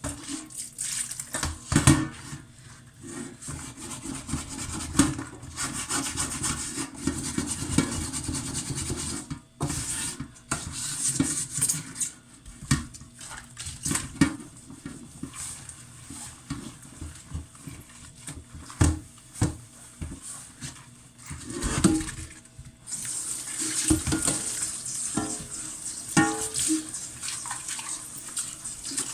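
Pots and pans being washed in a kitchen sink: scrubbing and frequent knocks of cookware, with running tap water coming and going.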